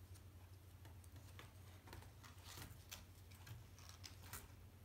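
Faint plastic clicks and taps from a replacement Dell Inspiron 14 3000 laptop keyboard being handled and laid onto the palmrest, a few scattered ticks over a low steady hum.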